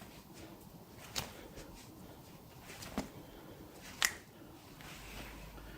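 Finger joints cracking under a chiropractor's traction grip: three separate sharp pops, a little over a second in, at about three seconds, and just after four seconds, the last the loudest.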